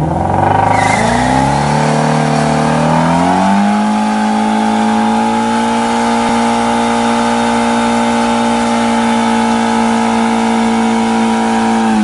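Ford Mustang Shelby GT350's 5.2-litre flat-plane-crank V8 revving up over the first few seconds, then held at a steady high rpm while the rear tyres spin in a smoky burnout.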